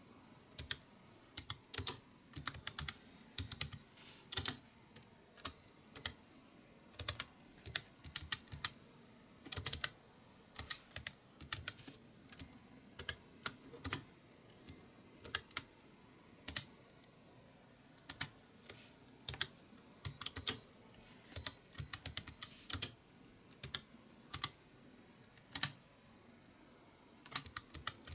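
Typing on the small keyboard of a Poqet PC pocket computer: sharp key clicks in irregular runs, broken by short pauses.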